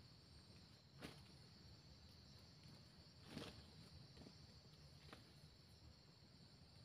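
Faint, steady, high-pitched insect chirring, with three soft brief clicks or rustles about a second in, midway and about five seconds in.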